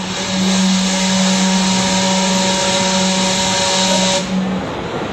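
Gastown steam clock's steam whistle blowing one long, low note over loud hissing steam. The hiss cuts off about four seconds in.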